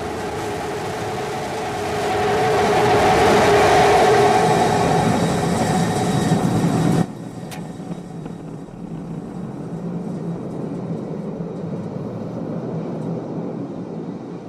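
Starship SN15's Raptor rocket engines running loud in the landing burn, a rough steady roar that swells and then cuts off abruptly about seven seconds in, leaving a lower rumble.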